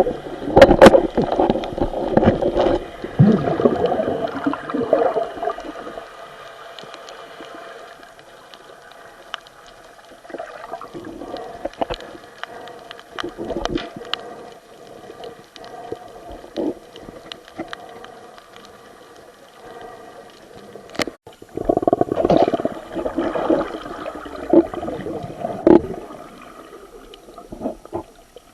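Water gurgling and bubbling around an underwater camera, with scattered sharp clicks. It is loud for the first few seconds and again from about 22 seconds in, and quieter in between.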